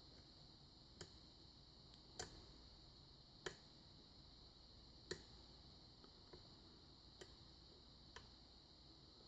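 Faint, irregular clicks of a lock pick working the pins of a Sargent six-pin tumbler lock, about eight sharp clicks roughly a second apart, over a steady faint hiss.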